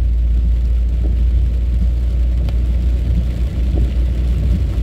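Steady low rumble of a car driving slowly, heard from inside the cabin: engine and road noise.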